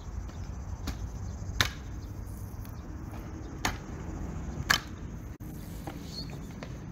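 Electric scooter knocking against concrete as it is ridden through tricks: about four sharp clacks over a steady low rumble.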